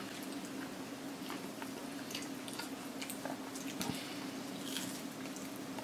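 A person chewing food close to the microphone, with scattered small wet clicks and smacks. A steady low hum runs underneath.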